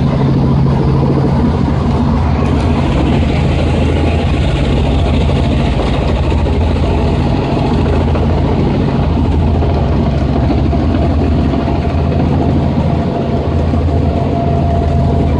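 Robinson R44 Raven II helicopter in flight, heard from inside the cabin: a loud, steady low drone of its piston engine and rotor.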